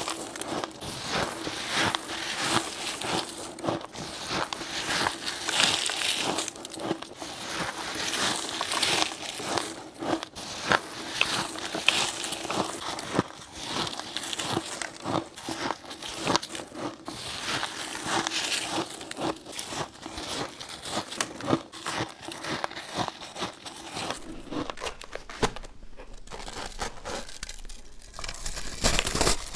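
Crushed ice being bitten and chewed close to the microphone: dense, rapid, crackly crunching, with a low steady hum underneath for most of the time. The crunching drops away briefly near the end, then starts again.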